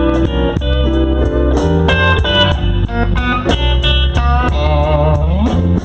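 Slow blues band playing an instrumental fill between sung lines: an electric guitar lead with bent notes, one long bend rising near the end, over bass and drums.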